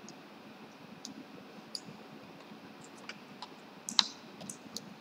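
Computer mouse clicking: scattered single sharp clicks, with a louder double click about four seconds in.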